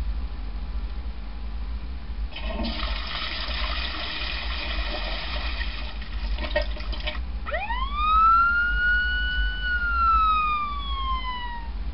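A toilet-flush sound effect rushing for about five seconds, followed by a single siren wail that rises quickly, holds, then slides slowly down. Both are played from a phone sound-effects app through external speakers, over a steady low hum.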